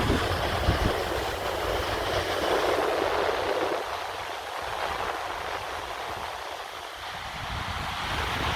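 Sea surf washing in and out, the noise of the waves swelling a couple of seconds in, ebbing, then building again near the end. Low wind rumble on the microphone in the first second.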